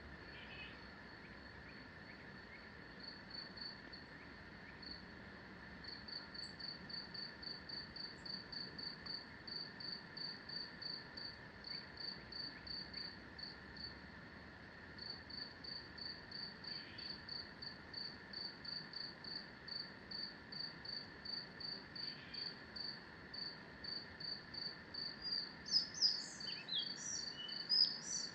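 Forest ambience: a high single-note chirp repeated evenly about three times a second, pausing briefly midway, over a faint steady background hum. Near the end a songbird breaks in with a quick run of gliding notes.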